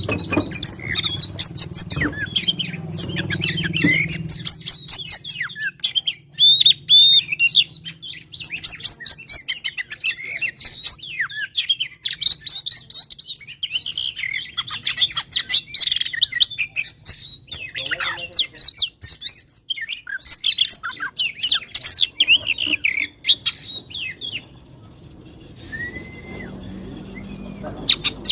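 Oriental magpie-robin (kacer) singing a fast, varied stream of high chirps, whistles and harsh notes: the excited 'fighting' song that keepers play to rile up other kacer. The song stops about 24 seconds in, and a few short rising-and-falling whistles follow near the end.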